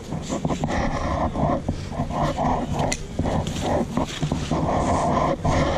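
Rough, scratchy rumbling from a faulty camera microphone, mixed with the rubbing and tugging of nylon backpack straps being pulled tight.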